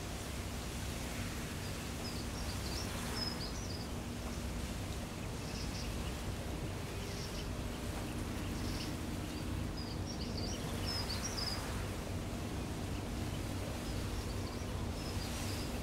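A steady low rumble with a faint steady hum underneath, and brief high twittering calls of small birds coming in short bunches every few seconds.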